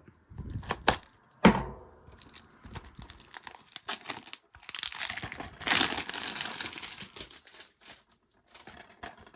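Plastic shrink-wrap being torn and crinkled off a sealed DVD case. A few sharp clicks and one loud snap come in the first couple of seconds, then a long crinkling stretch about halfway through.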